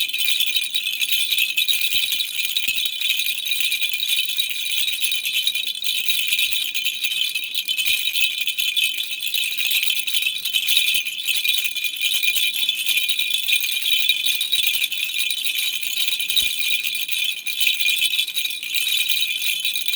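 Baby rattle shaken without a break: a steady, bright, high-pitched rattling.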